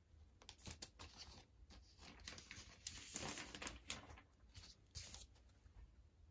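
Faint crinkling and rustling of a plastic outer sleeve as a vinyl LP jacket is slid out of it, in a run of short scrapes, loudest about three seconds in.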